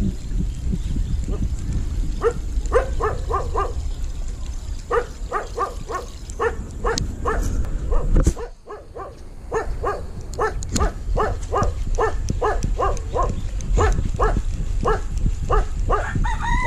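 A dog barking in quick runs, about three or four barks a second, over a low steady rumble; the barking breaks off briefly about halfway.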